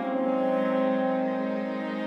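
Chamber ensemble of clarinet, French horn, violin, viola and cello playing a slow passage of held notes, the horn to the fore. A new chord comes in at the start and is sustained.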